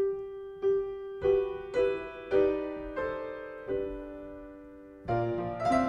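Grand piano playing a slow melody of single notes, struck about every half second and left to ring. The sixth note fades for over a second before a fuller chord with low bass notes comes in near the end.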